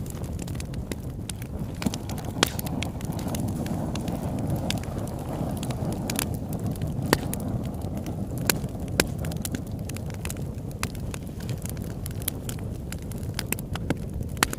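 Campfire burning with irregular sharp crackles and pops over a steady low rumble.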